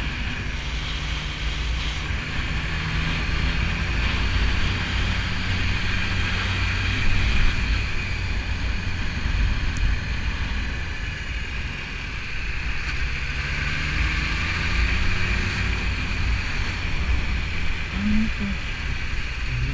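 BMW S1000RR's inline-four engine running steadily under way, mixed with rushing wind and road noise on the onboard microphone.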